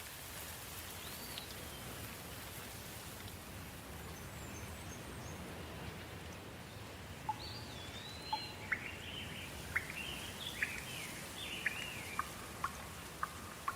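Soft, steady rain falling, with a bird chirping in quick short notes and little rising and falling calls from about halfway through.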